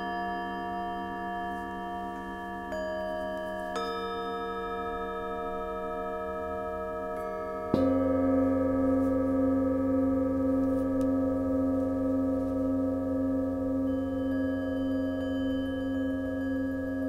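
Tibetan singing bowls struck one after another with sticks and a mallet, their long ringing tones overlapping. About eight seconds in comes a louder, deeper strike on a large bowl, which rings on steadily, and faint quick metallic ticking joins near the end.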